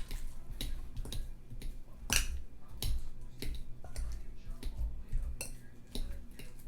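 Bananas being mashed in a bowl: a utensil knocks and clicks against the bowl again and again, about two or three strokes a second.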